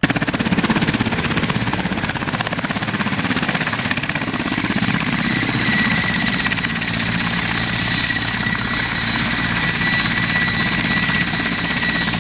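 Mi-8T helicopter running close by, its two turboshaft engines and main rotor going. A steady fast rotor chop under a high turbine whine, cutting in suddenly at the start.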